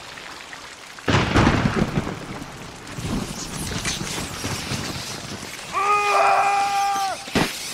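Film soundtrack through the church's loudspeakers: a sudden thunderclap about a second in that rumbles and dies away over a couple of seconds. Near the end comes a single held pitched sound about a second long, then a sharp click.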